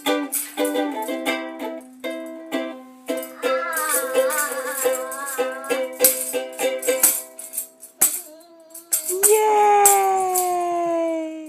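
Home music-making: a plucked string instrument strummed along with a shaken rattle, and a voice joining in with long wavering notes. Near the end one long note slides slowly down in pitch.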